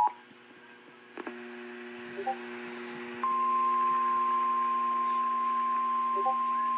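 Emergency alert tones for a tornado warning. The two-tone attention signal cuts off right at the start, and there is a short lull with a low steady hum and a click. About three seconds in, a loud, steady single-pitch alert tone comes in and holds.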